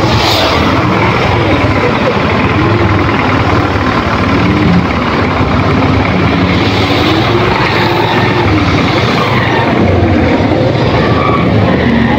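Motorcycle engine running while riding through city traffic, its note wandering slowly up and down with the throttle, over a loud steady rush of road noise.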